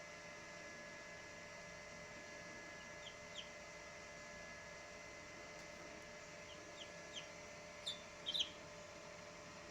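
A chick peeping: a few short, high, falling peeps, scattered at first and loudest in a quick cluster near the end. A steady electrical hum runs underneath.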